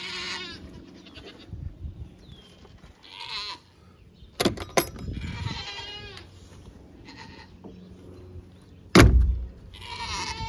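The wooden coop door's metal latch clicks a few times, then the plywood door bangs shut with one loud thump about nine seconds in, the loudest sound. Bleating farm animals call several times in between.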